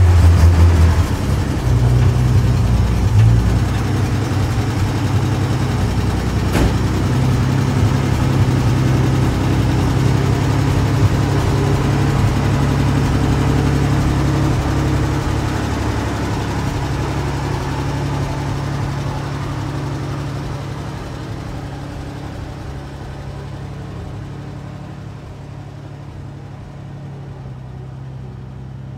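1946 Dodge Power Wagon's flathead six-cylinder engine running as the truck backs out of the garage, louder for the first couple of seconds, then fading steadily as it moves away. A single short click comes about six and a half seconds in.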